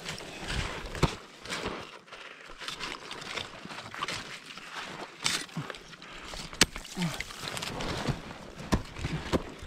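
Salewa ice axe picks striking into rime ice: a series of sharp, irregular impacts one to several seconds apart, over steady crunching and scraping noise.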